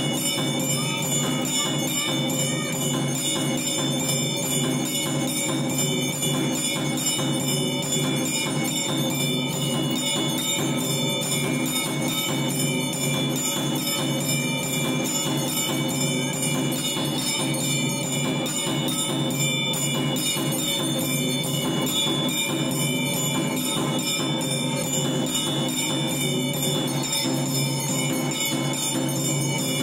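Temple bells ringing continuously and rapidly during aarti, an even, unbroken ringing.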